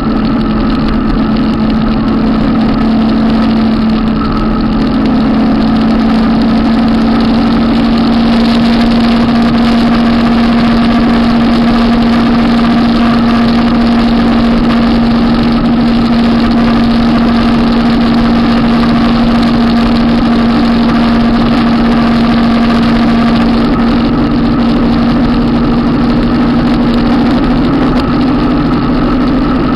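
Harley-Davidson V-twin motorcycles cruising at steady highway speed: an even engine drone with a constant hum, mixed with wind and road rush, the throttle held steady.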